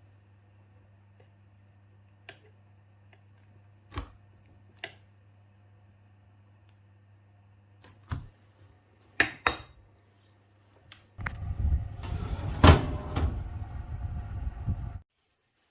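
Scattered knocks and clicks of kitchen handling over a low steady electrical hum, then a loud, rough, rumbling noise for about four seconds that cuts off suddenly.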